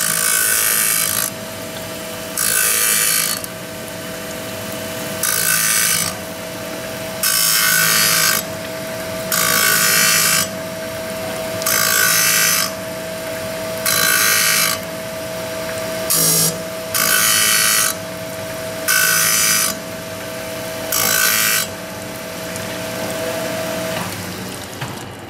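Arterki MF127B automatic saw blade grinding machine sharpening a circular saw blade tooth by tooth. The grinding wheel hisses against a tooth for about a second, roughly every two seconds, over a steady motor hum. The hum cuts off near the end.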